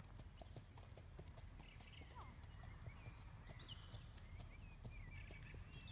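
A horse walking on a sandy arena, its hooves giving faint, evenly spaced soft footfalls over a steady low rumble.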